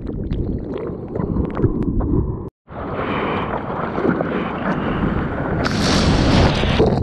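Sea water sloshing and splashing right at the microphone at surface level as a bodyboarder paddles out, with a brief total dropout about two and a half seconds in. Near the end a brighter, hissing rush of a wave breaking close by.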